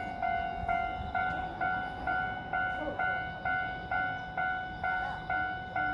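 Japanese railway level-crossing alarm ringing: one electronic bell tone struck about twice a second, each stroke fading before the next.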